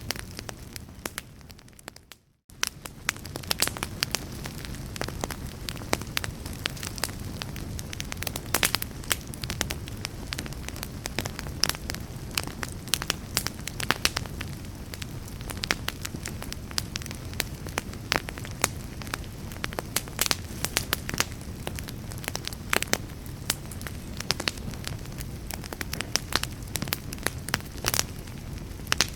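Wood fire burning in a fireplace: many sharp crackles and pops over a low steady rumble. The sound fades and drops out briefly about two seconds in, then comes back.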